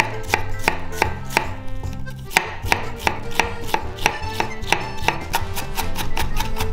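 Kitchen knife chopping red onion into fine dice on a wooden cutting board: a regular run of sharp knife strikes against the board, about three a second at first, quickening in the second half.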